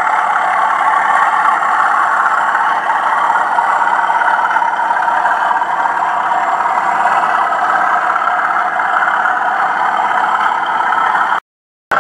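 Hornby OO gauge Class 37 model locomotive's TTS sound decoder playing a diesel engine running sound through its small onboard speaker while the model runs, on the normal setting with the thrash option off. Steady and thin, with little bass; it drops out for a moment near the end.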